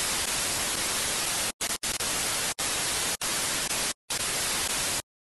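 Static-hiss sound effect of a glitch logo intro: a loud, even hiss broken by several brief dropouts, cutting off suddenly near the end.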